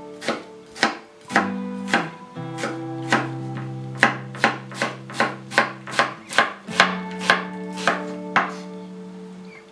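Chef's knife dicing an onion on a wooden cutting board: a steady run of knocks of the blade on the board, about two to three a second, stopping shortly before the end. Soft background guitar music plays underneath.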